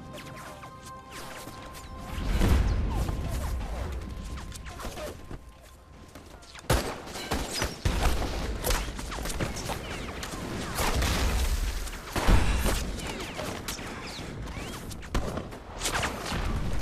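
Film battle sound effects: deep explosion booms about two seconds in, eight seconds in and twelve seconds in, with sharp rifle and gunshot cracks between them.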